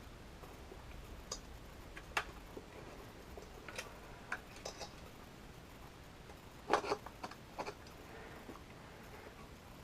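Scattered clicks and knocks of metal prying tools against the wheel rim and rubber as a tire is worked onto a Segway miniPRO wheel, with a quick cluster of knocks about seven seconds in.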